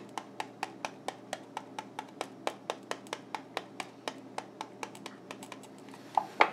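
Light, even taps on a tilted plastic cup, about four a second, shaking fine powder out onto a sticker. Two louder knocks come near the end.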